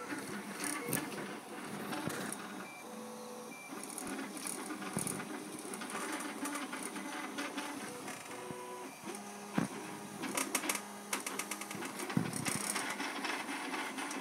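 3D printer running, its stepper motors whining in short steady tones that jump in pitch every fraction of a second as the head moves, with scattered clicks.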